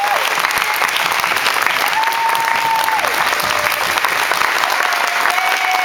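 Audience applauding steadily, with a few long, high held tones of about a second each sounding over the clapping.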